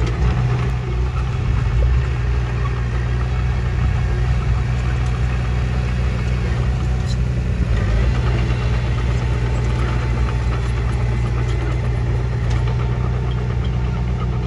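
Small crawler bulldozer's diesel engine running steadily as it works, pushing soil.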